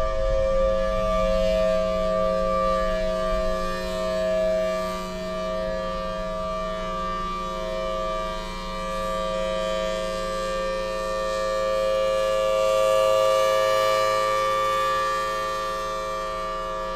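Federal Signal Thunderbolt outdoor warning siren sounding its steady full-alert tornado signal: a loud chord of several held tones that swells and fades slowly in loudness.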